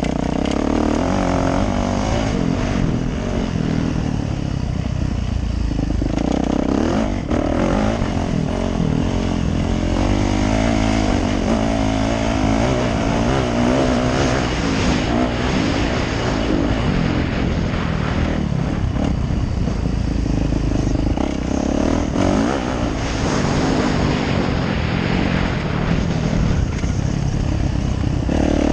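Yamaha YZ450F dirt bike's 450 cc single-cylinder four-stroke engine revving up and down as it is ridden, with wind rushing over the helmet camera's microphone.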